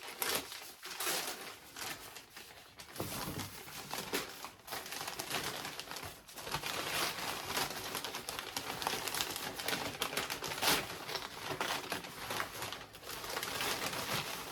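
Packaging crinkling and rustling in irregular bursts as a shipped orchid plant is unwrapped by hand.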